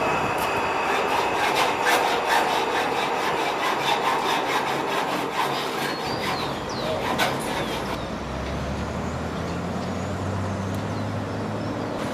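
Construction site work noise: rapid, irregular knocking and scraping of tools. About eight seconds in, a low steady motor hum joins in.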